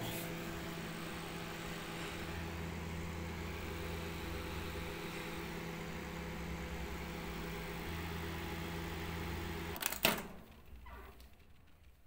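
Samsung microwave oven running with a steady hum, heating a bowl of water now that its blown fuse has been replaced. It stops with a sharp click about ten seconds in.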